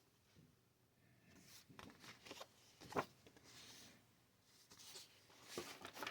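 Faint rustling and handling of cardboard and paper game components, such as player aid cards and a folded paper map, with one light tap about three seconds in.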